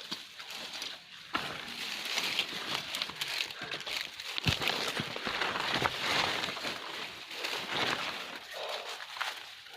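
Dense rustling and crackling with many quick clicks. It starts about a second in and eases off near the end.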